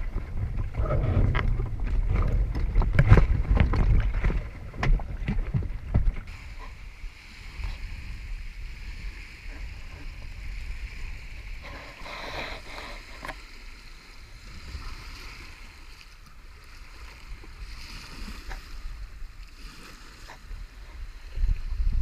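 Wind buffeting the microphone, with sharp knocks and rattles aboard a small sailing dinghy, for about the first six seconds. Then a quieter, steady wash of small waves lapping and splashing against the hull of the beached dinghy on a sandy shore, with occasional light knocks.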